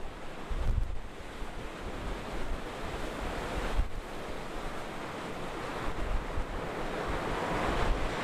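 Ocean waves breaking, a steady hiss of white water that builds toward the end, with strong wind buffeting the microphone in low rumbling gusts.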